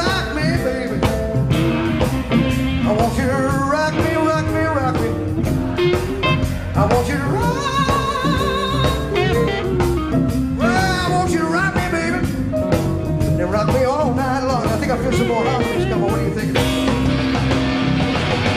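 Live rock band playing: drum kit, bass and electric guitars, with a lead melody line of bending, wavering notes over the band.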